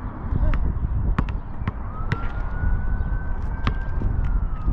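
A siren wailing: its pitch falls at the start, rises again about two seconds in, holds, then falls near the end. Sharp bounces of a basketball on the court are heard a few times over it.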